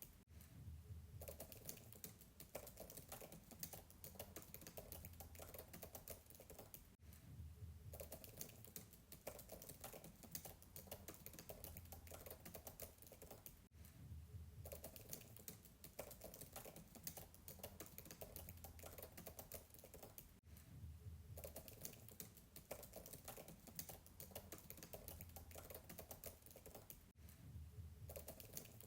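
Fast typing on a MacBook keyboard, heard faintly from a distance: a dense, continuous run of soft keystrokes, broken by a brief pause about every six to seven seconds.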